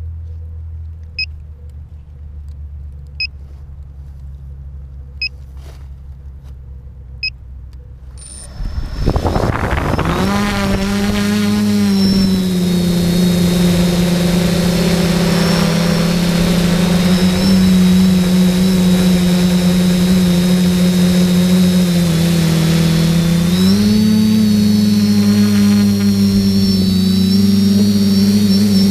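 A short electronic beep every two seconds over a low hum, then about eight seconds in the brushless motors and propellers of a hobby SK450 quadcopter spin up in a rising whine and lift off. A loud steady multi-rotor buzz follows, heard from on board, stepping up in pitch near the end as the throttle is raised.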